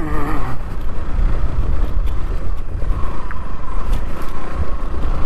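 Motorcycle being ridden on a rough, unpaved village road: a steady rumble of wind, engine and road noise.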